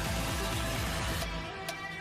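Background music: an electronic track with a strong bass line; the high end drops away about a second in.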